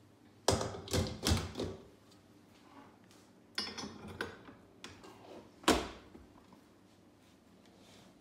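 Stainless steel bowl and K beater being fitted onto a Kenwood Cooking Chef stand mixer: a run of metal clunks and clicks about a second in, more clicking around four seconds, and one sharp knock, the loudest, near six seconds. The mixer's motor is not running.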